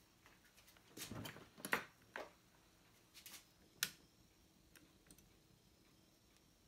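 A handful of faint clicks and light knocks of small parts and wires being handled on a workbench, the sharpest about four seconds in.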